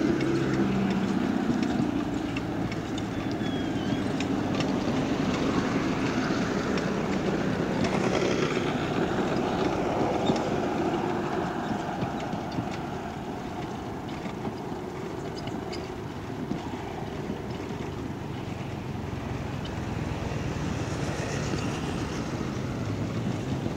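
Steady road and traffic noise, heard from a moving bicycle on a town road.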